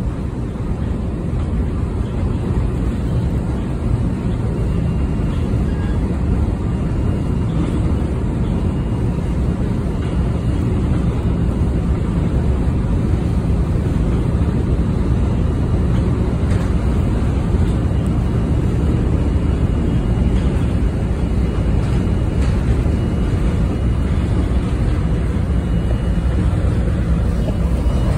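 Steady low rumble and hiss of a vehicle travelling at speed, heard from inside, building a little over the first few seconds and then holding even.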